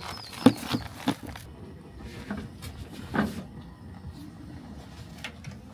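Handling noises around a cooler and a portable butane cassette stove: a few sharp clicks and knocks in the first second and a half, the sharpest about half a second in, then a single thud about three seconds in.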